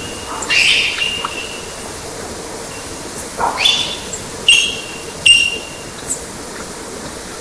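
Field recording of animal calls: about four sharp bark-like calls, the first two sweeping upward in pitch, each running into a steady high whistle, over a steady hiss. The recordist takes them for the signalling barks and whistles of an unidentified animal.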